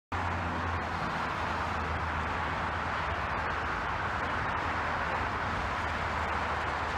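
A steady rushing noise with a low, even engine hum underneath, like a motorboat under way; it starts abruptly and holds at one level throughout.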